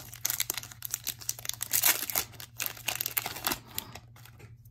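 Foil wrapper of a Magic: The Gathering booster pack being torn open and crinkled in the hands, a quick run of crackles that thins out near the end as the cards come out.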